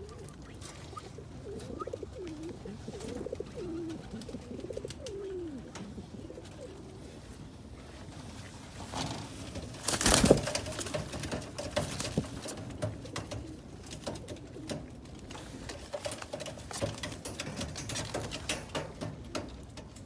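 Lahore pigeons cooing, with gliding calls in the first few seconds. About halfway through comes a loud, sudden flurry of wing flapping, followed by scattered scuffling and clicks as the birds shift about on the wire floor.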